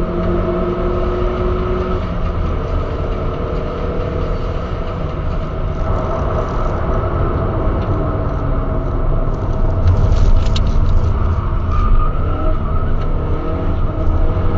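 Turbocharged Skoda Octavia with a Supersprint exhaust and K&N air filter, heard from inside the cabin at speed: the engine pulls under load over a steady low rumble, its pitch shifting several times as the revs change. It grows louder after about ten seconds.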